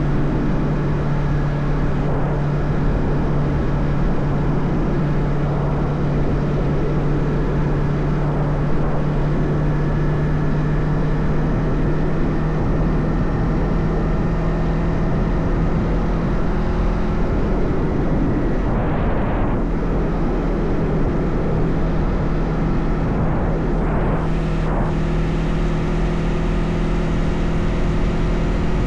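Motorcycle engine running at a steady cruise, heard from the bike with wind and road noise, with two brief swells of noise about two-thirds of the way through.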